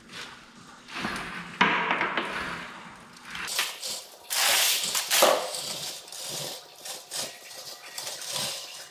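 Hydraulic engine hoist being pumped by hand as it lifts a Caterpillar 3412 cylinder head off the block: irregular metal clanks, rattles and scraping, loudest about halfway through.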